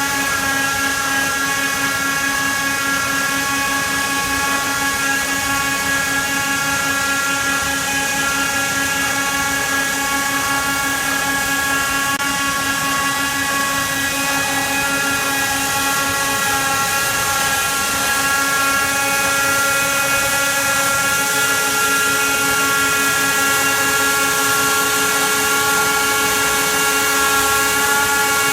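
Hilti wire saw running steadily under cut: a continuous, many-toned mechanical whine over a steady hiss. About three-quarters of the way through, a further tone joins in.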